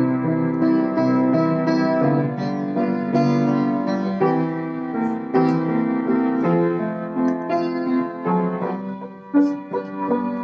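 Solo piano playing a slow hymn in sustained chords, with a brief softening about nine seconds in before a new chord is struck.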